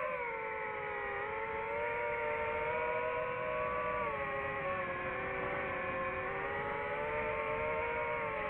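DJI FPV drone's motors and propellers whining steadily in flight, several close pitches slowly dipping and rising as the throttle changes.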